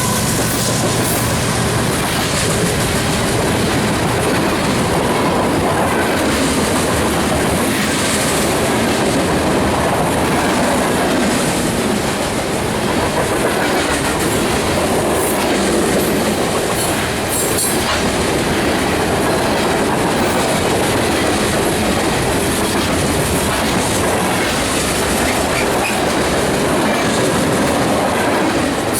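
CSX freight train rolling past at close range: a steady loud rumble of the cars, with the wheels clicking over the rail joints.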